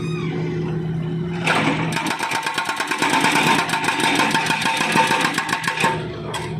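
Hydraulic breaker on a Volvo wheeled excavator hammering asphalt. The diesel engine runs steadily; about a second and a half in, the breaker starts a rapid, even hammering and stops shortly before the end, leaving the engine running.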